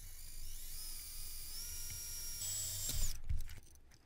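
Small handheld power drill with a fine twist bit drilling a pilot hole in an HO-scale locomotive tender's frame, for a self-tapping drawbar screw. The thin motor whine rises in pitch over the first second or so, holds steady, and stops about three seconds in, followed by a light knock.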